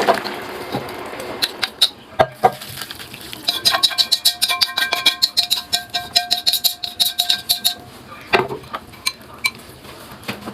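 A metal utensil clinking rapidly against a ringing metal bowl or pot, as in stirring or whisking. It goes on for about four seconds in the middle, with a few separate knocks before and after.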